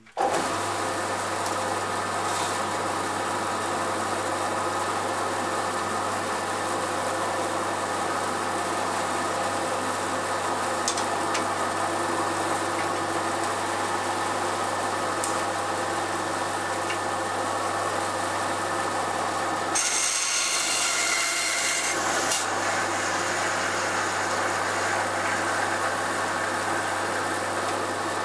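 Bandsaw motor switched on and running with a steady hum. About two-thirds of the way through, a rasping hiss joins it as the blade cuts into a workpiece fed by hand.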